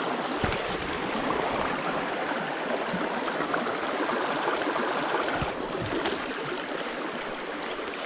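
Shallow creek water running and gurgling over rocks close by, a steady wash of noise that eases slightly about five and a half seconds in. Two brief dull knocks are heard, about half a second in and again about five and a half seconds in.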